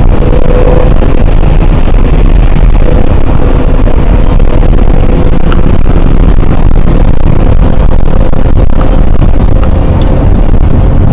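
Mercedes-Benz car driving at steady speed, heard from inside the cabin: loud, even engine and road rumble, with a faint whine that rises slowly in pitch.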